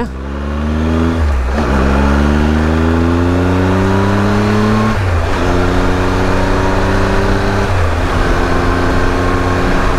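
Triumph Tiger 1200's three-cylinder engine accelerating hard through the gears. It revs up and drops in pitch at three upshifts, about a second and a half, five and eight seconds in, pulling more steadily in the higher gears.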